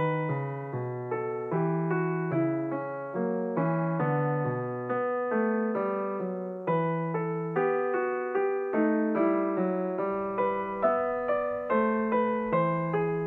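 Background piano music: a steady, even run of notes, each struck and fading away.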